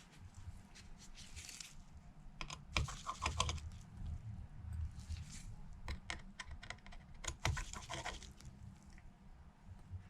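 Light clicks and scratching of a tri-point precision screwdriver and small tools working screws out of an iPhone's internal bracket, in two busier flurries of ticks, about two and a half seconds in and again near eight seconds.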